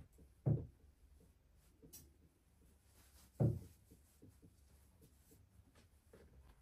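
Two dull thuds about three seconds apart, with faint light clicks between them.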